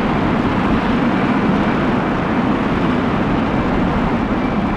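Volcanic fumarole vent with high-pressure, sulfur-rich gas rushing out of the ground: a steady, deafening noise without a break.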